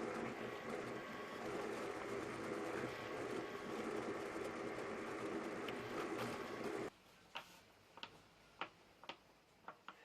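Electric drill driving a homemade sanding drum, running steadily, then cut off suddenly about seven seconds in, followed by several sharp clicks.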